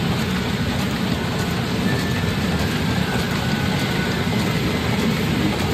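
Steady, dense din of a pachinko parlour: many machines' steel balls and electronic sound effects blend into one unbroken roar, with a few faint electronic tones on top.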